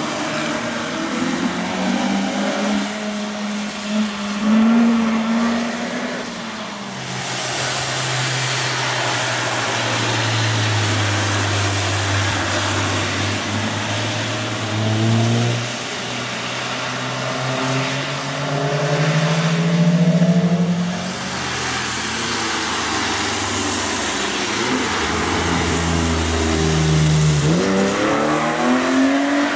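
Several cars passing one after another on a wet race track, their engines rising and falling in pitch as they brake and accelerate through the corner, over a steady hiss of tyres on wet tarmac. Near the end one engine revs up sharply.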